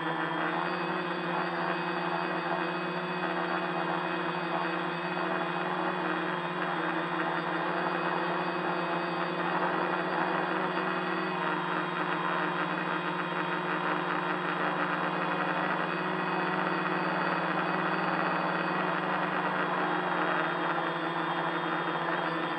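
A tricopter's three electric motors and propellers whirring steadily in flight, heard close up from the camera mounted on it.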